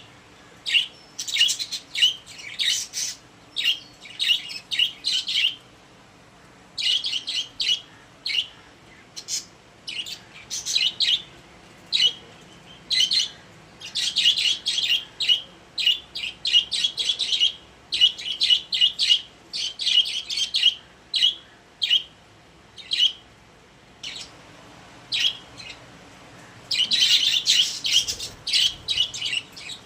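Pet budgerigars chirping and warbling in rapid bursts of short, high-pitched calls, with brief pauses between runs.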